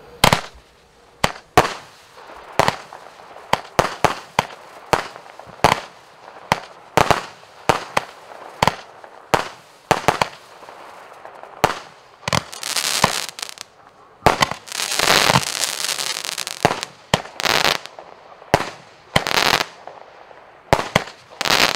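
Consumer firework compound cake firing: a quick series of sharp shots, about one or two a second, with longer, denser stretches a little past the middle where several bursts overlap.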